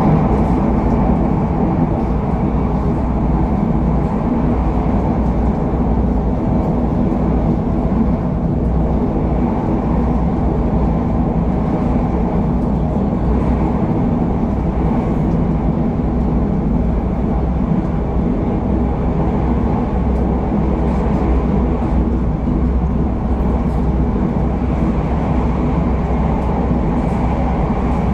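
Steady running noise of a KTM Class 93/2 ETS electric multiple unit travelling at speed: a constant low rumble that does not change, as heard on board.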